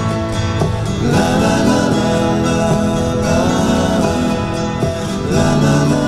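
Background music, growing fuller and louder about a second in.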